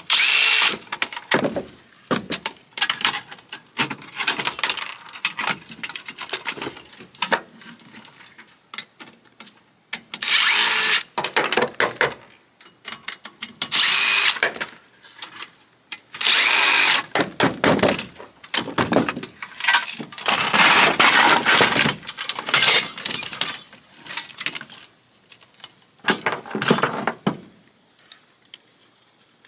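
Power drill/driver running in short bursts of a second or two, spinning up each time, while taking the oscilloscope apart. Between the bursts, metal and plastic parts click and clatter as they are handled.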